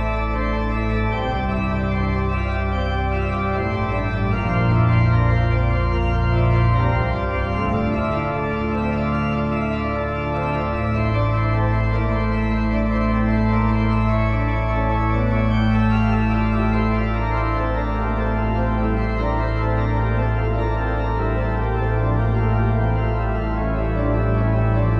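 Background music of slow, sustained organ chords, each held for several seconds, with a clear chord change about eleven seconds in.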